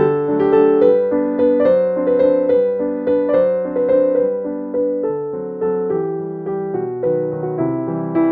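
Background music: a gentle piano tune with a steady rhythm of struck notes.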